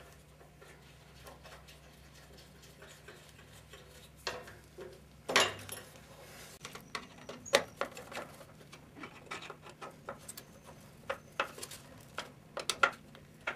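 A small metal L bracket being handled and fitted against a wooden caster board: scattered light clicks and metal-on-wood taps, with a sharper knock about five seconds in. A low hum underneath stops at about the same moment.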